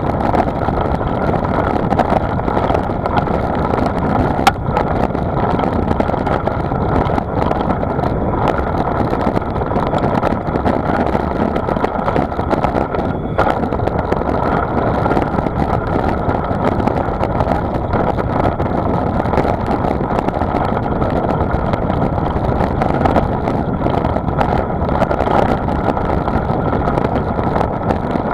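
Steady noise of a vehicle in motion, mixed with wind rushing over the microphone, with a single sharp click about four and a half seconds in.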